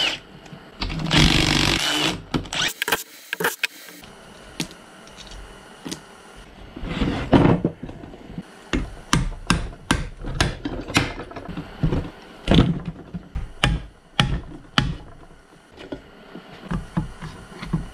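A cordless Milwaukee impact gun runs briefly on the side cover bolts of a VW Beetle swing-axle transaxle near the start. It is followed by many separate knocks, clicks and clanks of metal parts and tools being handled as the side cover is worked loose and lifted off the case.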